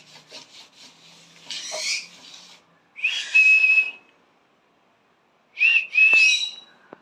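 Green-cheeked conure calling: softer scratchy noises at first, then loud, shrill whistled calls about three seconds in and again twice near six seconds.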